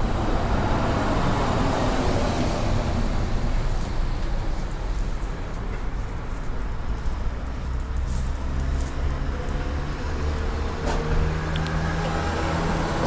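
Car engine running steadily, with a low hum and road or traffic noise. The engine's tone becomes clearer about two-thirds of the way through.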